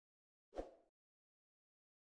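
One short sound effect from a subscribe-button animation, starting sharply about half a second in and fading within half a second, with digital silence around it.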